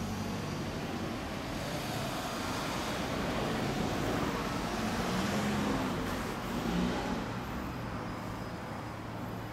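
Road traffic: vehicle engines running, with a car passing that swells and fades in the middle.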